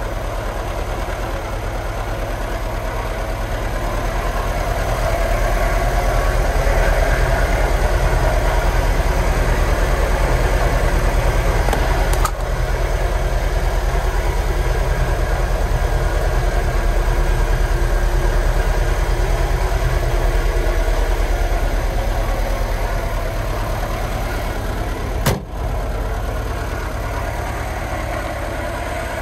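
Żuk A15's four-cylinder petrol engine idling steadily, louder for a stretch in the middle. There is a faint click about 12 seconds in and a single sharp click about 25 seconds in.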